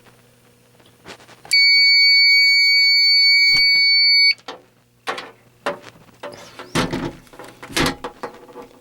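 Alarm-system sounder giving one steady, loud, high-pitched electronic beep lasting nearly three seconds, starting and cutting off sharply, during a fire-alarm system test. It is followed by a few clicks and knocks from handling.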